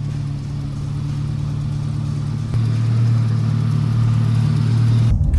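Nissan Hardbody D21 pickup engine running steadily. Its low hum steps up and gets louder about halfway through.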